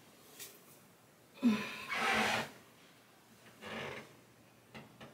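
A few loud, noisy breaths: a long sharp exhale starting about a second and a half in, a shorter one near four seconds, and a couple of small clicks near the end.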